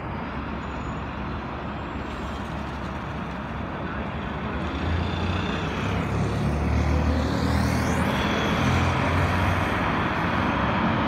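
Road traffic, growing louder from about halfway through, with a low rumble.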